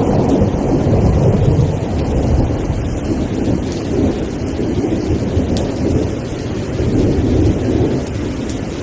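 Steady heavy rain with a low, continuous rumble of thunder underneath, easing slightly near the end.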